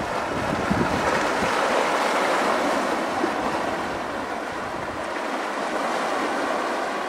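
Sea waves breaking and washing over a rocky shore: a steady rush of surf that swells slightly in the first few seconds and eases a little after the middle.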